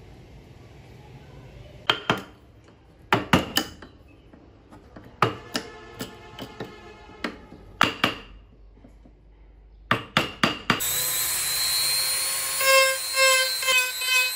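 A run of sharp, separate knocks as the wooden car body is carved with a chisel. About three-quarters of the way in, a handheld rotary tool starts and runs with a high steady whine, pulsing toward the end as its bit cuts into the wood.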